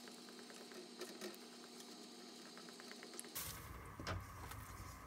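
Spatula stirring gram flour through hot ghee in an iron karahi, with faint, rapid small ticks of crackling. About three seconds in, a fuller, lower stirring and frying sound takes over.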